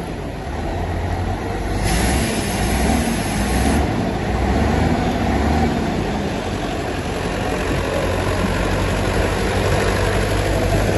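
Excavator's diesel engine running steadily with a deep rumble. A brighter hiss joins it for about two seconds near the start.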